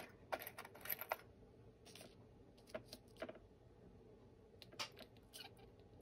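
Faint, light clicks of metal tweezers tapping and setting small glass pieces down on a glass tile, about ten ticks spread unevenly.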